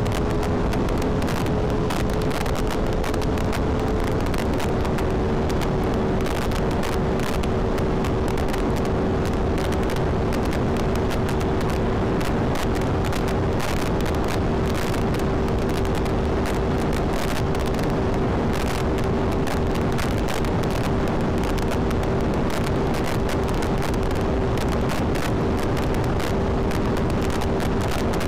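Aprilia Tuono 660 parallel-twin engine held at high revs at about 200 km/h, a steady engine tone under heavy wind rush buffeting the rider's microphone.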